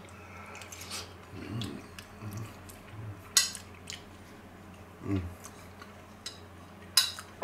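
A man chewing a forkful of food, with soft mouth sounds and low murmurs. Two sharp clicks come about halfway and near the end, from the metal fork.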